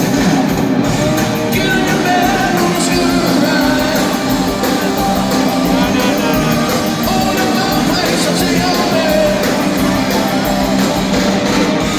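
Live rock music: a band with electric guitar plays while singing carries the melody.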